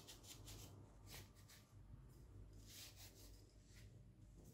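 Faint rubbing of a cloth wiping over the metal of a pipe wrench: a few short strokes, over a faint low hum.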